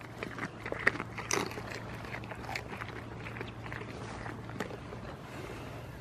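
Rustling and scattered soft clicks of a goat nibbling and mouthing a cloth glove close to the microphone, thinning out after about two seconds, over a steady low hum.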